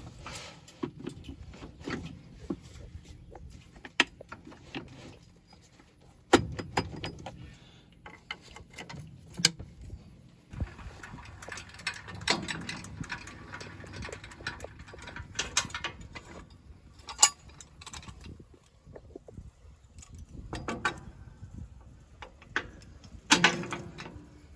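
Scattered metal clicks, clanks and knocks from a baler being hitched up and connected to a tractor.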